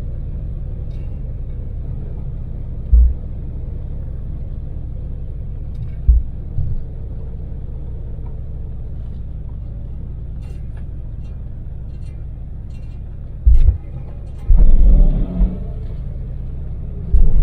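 Daewoo Damas LPG microvan driving at expressway speed, heard from inside the cabin: a steady low engine and road rumble. It is broken by several sudden, loud low thumps a few seconds apart, with a longer cluster of them near the end.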